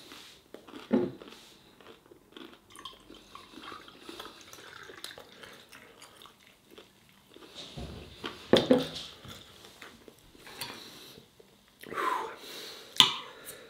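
Beer poured from a bottle into a tall glass, a quiet run of splashing and fizzing lasting several seconds. Later come a louder short sound about eight seconds in and clinks of a knife and fork on a plate near the end.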